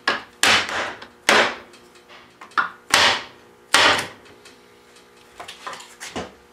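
A hammer tapping at the joints of a wooden chair frame to mark them for reassembly. There are five sharp strikes over the first four seconds, then a few lighter taps near the end.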